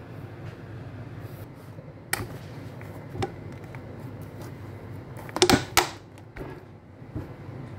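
Kitchen items being handled on a countertop beside a juicer: several knocks and clicks, with a quick cluster of sharper clacks about five and a half seconds in, over a steady low hum.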